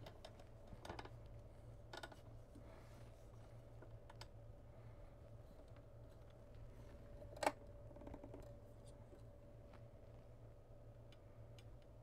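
Faint scattered clicks and knocks from handling gear on a desk, with one sharper click about seven and a half seconds in, over a steady low hum.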